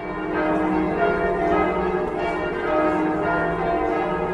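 Several church bells ringing, struck one after another, their tones overlapping as they ring on.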